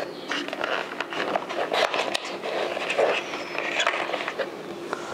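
Hands rummaging through a soft camera-accessory case: rustling with scattered small clicks and knocks of loose plastic and metal parts.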